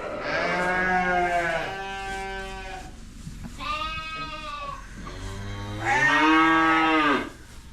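Dorper sheep bleating: about four long, drawn-out calls one after another, the last the loudest.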